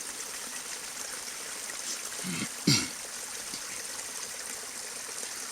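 Spring water trickling and running over the ground in a steady hiss. About two and a half seconds in, a short falling vocal sound cuts across it.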